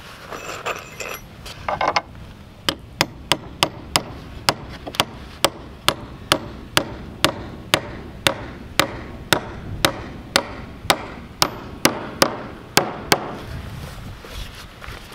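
A hammer driving a round-headed bolt through a hole in a steel strap hinge into a plank door: a steady run of sharp metal-on-metal strikes, about two a second, after some lighter clinking at the start, stopping a couple of seconds before the end.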